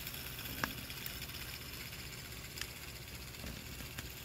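3D-printed pulse motor's heavy rotor of N52 block magnets spinning steadily on its stand: a low, even hum with hiss. A few faint clicks, the sharpest about two thirds of a second in.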